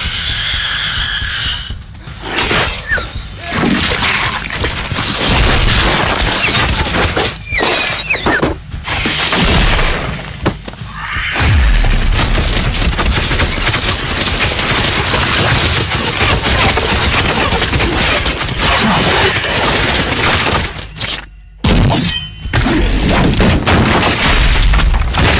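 Loud, dense film sound effects of crashing, smashing and booming impacts, with dramatic music underneath. The din cuts out for a moment about three quarters of the way through, then comes back at full loudness.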